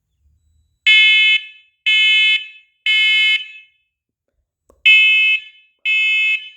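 First Alert SC7010BV smoke and carbon monoxide alarm sounding its smoke alarm during a button test. It gives loud, high-pitched beeps in the temporal-three pattern, the standard evacuation signal: three half-second beeps a second apart, a pause of about a second and a half, then the next group of three begins.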